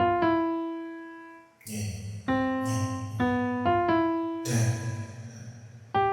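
Instrumental opening of a rap beat: a keyboard melody of single held notes that fade away, over a low bass, with noisy percussion hits about a second and a half in and again past the four-second mark.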